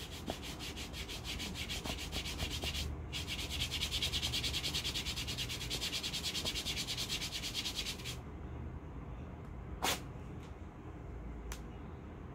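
A hand rubbing a cold wax hair-removal strip fast back and forth over the skin of the leg: a quick, even swishing in two runs, with a short break about three seconds in and a stop about eight seconds in. About ten seconds in comes one short sharp rip as the strip is pulled off the leg.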